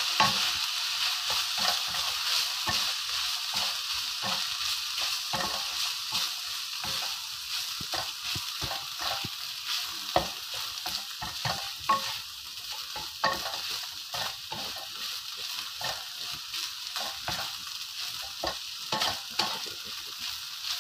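Fried rice with diced ham and carrot sizzling in a nonstick frying pan while a wooden spatula stirs and tosses it, with frequent short scraping knocks of the spatula against the pan. The sizzle gradually eases off over the first half.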